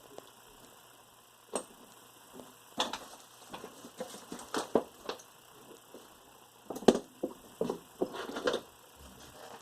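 Irregular light clicks, taps and rattles of small parts and tools being handled while working on a VCR's mechanism, in two busy clusters with the sharpest click about seven seconds in.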